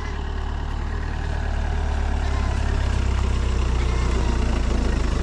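Pickup truck engine running at low speed, a steady low hum that grows louder as the truck draws close. A brief bleat sounds at the very start.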